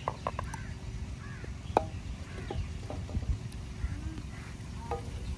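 Scattered light clicks and knocks over a steady low outdoor rumble, with a few faint bird calls.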